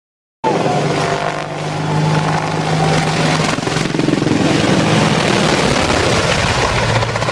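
Helicopter rotor and engine running loudly and steadily, cutting in abruptly about half a second in.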